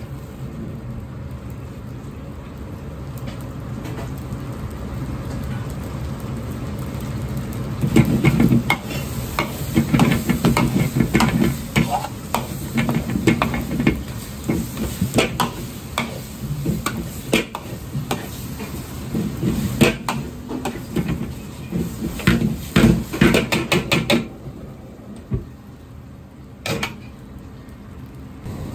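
Fried rice being stir-fried in a wok: a steady sizzle at first, then from about eight seconds in the metal ladle clanks and scrapes against the wok in quick, irregular strikes, which die down a few seconds before the end, leaving a quieter sizzle and one last clank.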